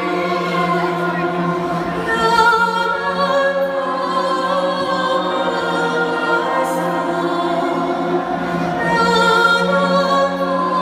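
Choir-like music over the concert sound system: sustained sung chords over a steady low drone, swelling a little about two seconds in and again near the end.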